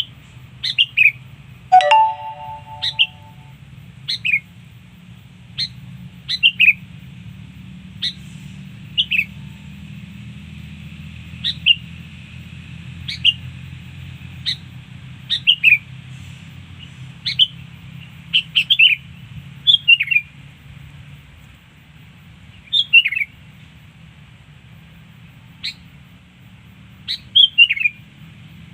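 Sooty-headed bulbul (kutilang) calling: short, sharply falling chirps, singly and in quick pairs or triplets, at irregular intervals. A brief pitched tone sounds about two seconds in, over a low steady hum.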